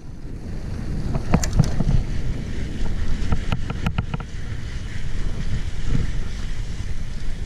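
Wind buffeting the camera's microphone and tyres rolling over a dirt track as a mountain bike rides downhill at speed, building up over the first second or two. A few sharp rattles and knocks from the bike going over bumps, mostly around a second and a half in and again near the middle.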